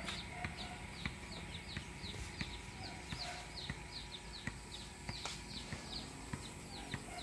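Baby chicks peeping: a steady run of short, high, falling peeps, two or three a second, with a few faint clicks among them.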